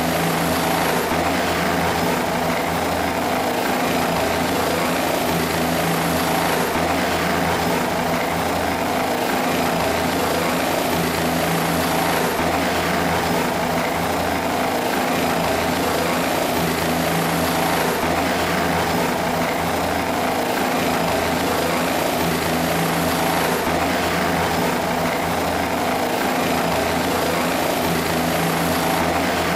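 Turbine helicopter of the Bell 206 type running steadily on the ground with its rotor turning: a constant engine whine over the rotor noise.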